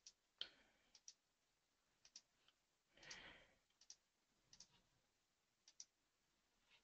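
Near silence with faint, scattered computer mouse clicks, a few in quick pairs, and one slightly longer soft click about three seconds in.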